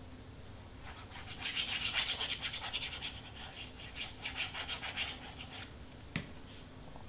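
Cardstock handled and rubbed by hand: a quick run of short, scratchy rubbing strokes for about four and a half seconds, then a single light tap.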